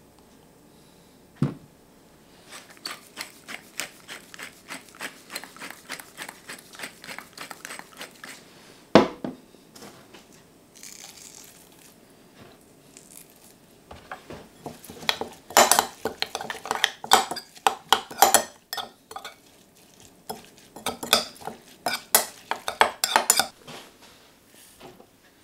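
Metal spoon stirring a sauce in a glass mixing bowl, clinking against the glass in quick, even strokes, with one sharp knock about nine seconds in. The clinking comes back louder and busier in the second half.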